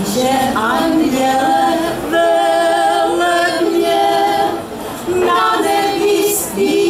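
Women's folk singing group from Kyjovsko and Horňácko singing a Moravian folk song unaccompanied, with long held notes and a brief pause for breath about two-thirds of the way through.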